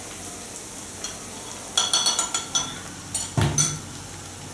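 A spoon clinking and scraping against a ceramic bowl in two quick flurries, with one dull knock in the middle of the second. Under it, onions sizzle steadily as they fry in a pan.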